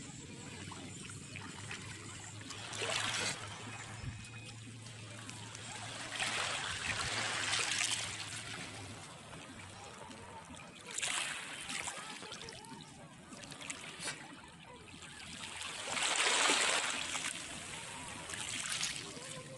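Calm sea water lapping at a pebbly shore, swelling into a louder wash every few seconds.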